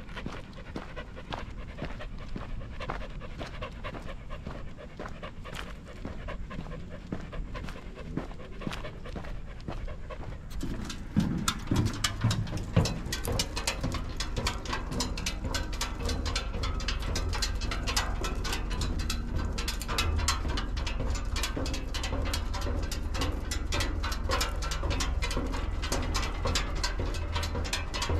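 Standard schnauzer panting steadily close by as it walks. From about ten seconds in, a few low thumps and then a brisk run of sharp footfalls on wooden footbridge boards join the panting.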